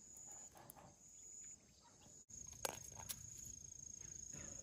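Faint high, thin insect trill, broken on and off for the first two seconds, then continuous after a brief dropout, with a few faint taps.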